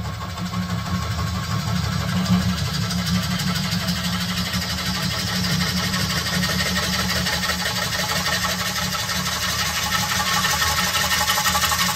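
Wood lathe running with a flat-bladed turning tool cutting across the face of a spinning ash platter blank: a steady low motor hum under the rough hiss of the cut, which builds over the first couple of seconds as the tool bites and shavings fly.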